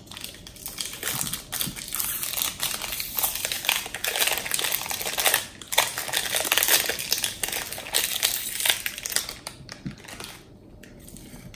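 Plastic Oreo biscuit packet wrapper crinkling and tearing as it is peeled off a frozen ice cream bar, a dense crackle that dies down about ten seconds in.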